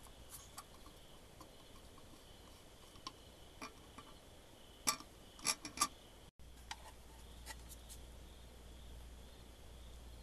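Faint scattered clicks and taps of small hard parts being handled, with a cluster of louder clicks about five to six seconds in. After a brief dropout a steady low hum runs under the rest.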